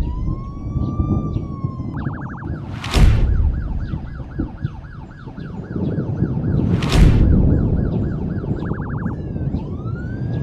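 Police siren sound effect cycling through its tones: a slow wail, a short rapid warble, a fast yelp of about two or three sweeps a second, then the wail again. It runs over a low rumbling bed, with loud boom hits about three and seven seconds in.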